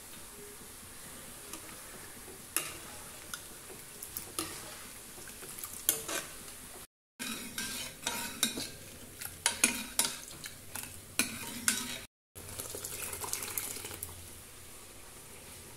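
A spoon clicking and scraping against metal pots as cooked toor dal is stirred in a pressure cooker, many sharp knocks in quick succession. Near the end, a soft hissing splash as the dal is poured into the simmering sambar.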